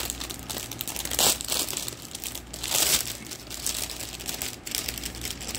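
Crinkly plastic packaging being crumpled and rustled by hand, with two louder bursts of crackling about a second in and about three seconds in.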